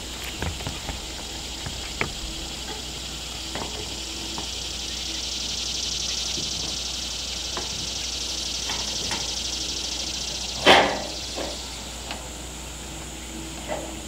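Steady insect chorus, swelling through the middle, with scattered light taps and clicks from work on metal roofing panels and one loud short clatter about eleven seconds in.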